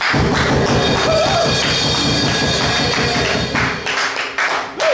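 Noise-music jam: a dense, loud wall of noise from electric guitar and electronics starts abruptly, then breaks off about four seconds in, leaving a few separate sharp taps.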